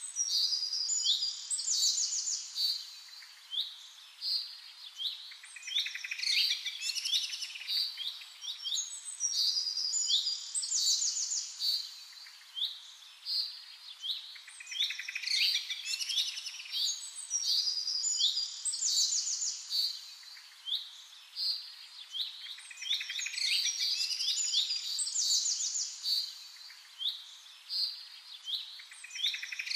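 Many small birds chirping and twittering, a dense chorus of quick repeated chirps and short fast trills.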